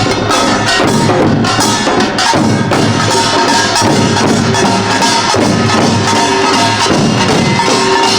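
Pungmul percussion ensemble playing loud, dense, continuous rhythm: kkwaenggwari small gongs clanging over janggu hourglass drums and buk barrel drums, with a ringing gong tone underneath.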